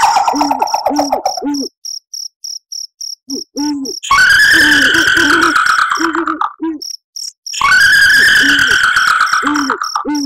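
Kuntilanak ghost laugh sound effect: a long, high-pitched female cackle with a rapid trill, coming in three stretches with gaps between. Under it, crickets chirp steadily and a low owl hoot repeats.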